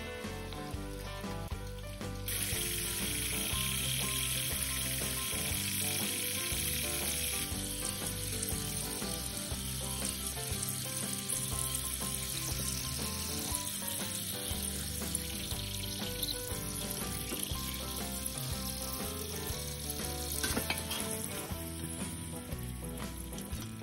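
Cut potato strips deep-frying in hot oil in a miniature pan. The sizzle sets in suddenly about two seconds in, is strongest for the first few seconds, then eases and dies away near the end, under background music.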